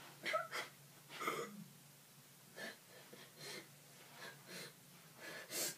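A girl's short, breathy gasps, about nine of them spread through, as in sobbing.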